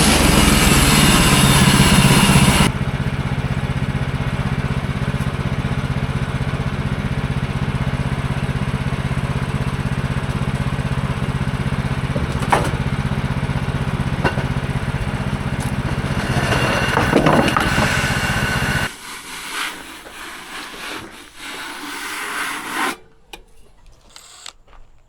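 Gasoline engine of a manual bandsaw sawmill running steadily, loud with a hiss at first, then a little quieter. It shuts off about 19 seconds in, followed by a few light clicks and knocks.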